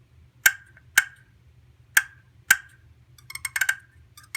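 Striker pulled across the anodized aluminum surface of a small friction turkey call (pot call): four sharp clucks in two pairs, then a quick rolling purr near the end. These are soft tree calls, the clucks and purrs of wild turkeys just waking on the roost.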